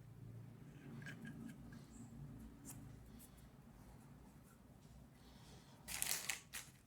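Faint light clicks and scratching from small parts being handled, with one brief louder rustling burst near the end.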